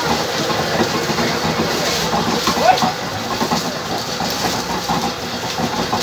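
Motor-driven sugarcane mill running at full tilt, crushing cane stalks as they are fed in: a steady mechanical din full of small cracks and clicks.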